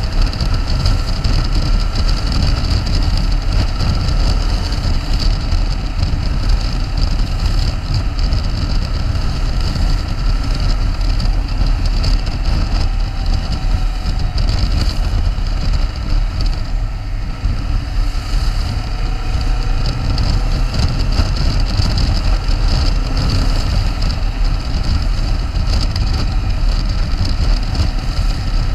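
Motorcycle riding through slow freeway traffic: steady wind rush over the microphone with the engine and road rumble underneath, and no big changes.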